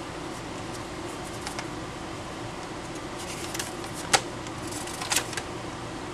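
Paper instruction sheets and small kit parts being handled: light rustling and scattered small clicks, with one sharp click about four seconds in and another about a second later, over a steady low hum.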